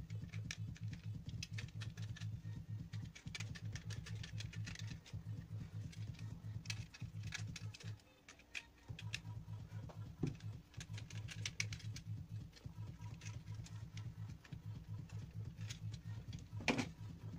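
Irregular small clicks and taps of hand-tool work on an axe handle, over a steady, pulsing low hum that drops out briefly about halfway through; one sharper knock near the end.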